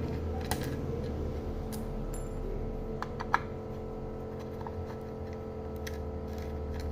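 Scattered light clicks and taps of hand tools and metal parts as screws are removed and the circuit board is taken out of a car subwoofer amplifier's case. The sharpest click comes about three seconds in, over a steady low hum.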